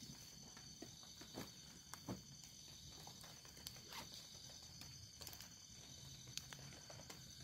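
Steady high-pitched chorus of night insects, with a few soft rustles and knocks from handling gear and stepping on the forest floor.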